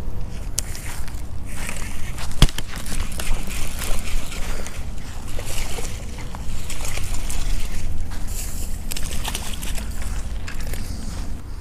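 Wind rumbling on the microphone, with rustling and clicking from a baitcasting rod and reel being cast and reeled in, and one sharp click about two and a half seconds in.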